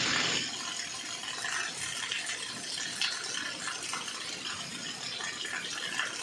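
Water gushing out of an opened water pipe, loud at first and dropping about half a second in to a quieter, steady rush with small splashes.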